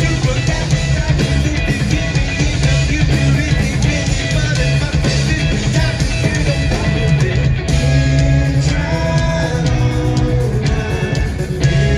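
Live rock band playing loud through a stadium PA, heard from the crowd: bass guitar, drums and electric guitar, with a male lead vocal. A sung or played melody stands out more clearly from about two-thirds of the way in.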